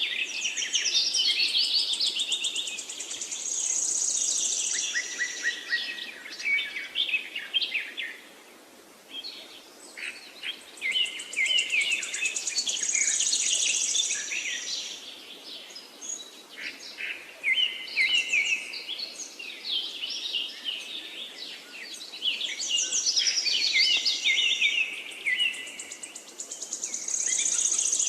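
Birds singing: fast chirps and trills in loud phrases that come and go every several seconds.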